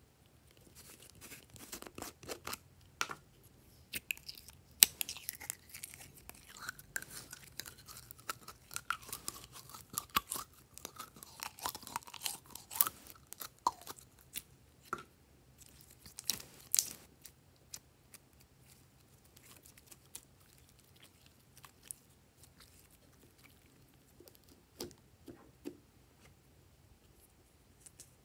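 Plastic bottle of glitter slime being handled and squeezed out, with sticky crackling and clicking, dense through the first half and sparse after. A thin squeaky tone slides slowly lower in the middle.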